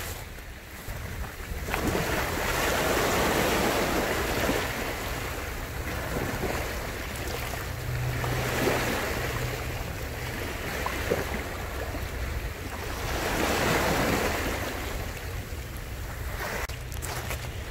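Small sea waves washing in over a cobble beach, swelling and fading three times a few seconds apart.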